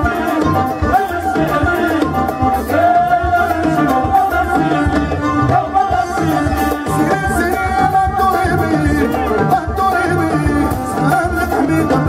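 A Moroccan chaabi band playing live: a violin-led melody over a steady beat of frame drums and hand drums, with keyboard and electric guitar.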